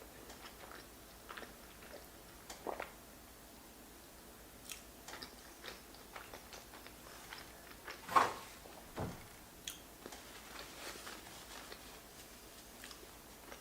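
Close-up eating sounds of a person chewing king crab fettuccine Alfredo: quiet chewing with scattered small mouth clicks, and one louder wet bite or smack about eight seconds in.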